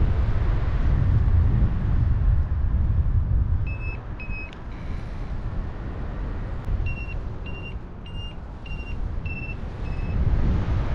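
Wind rushing over the microphone in flight, with a flight variometer beeping short steady tones: two beeps about four seconds in, then a run of six at about two a second from seven seconds in. This is the climb tone that signals weak lift.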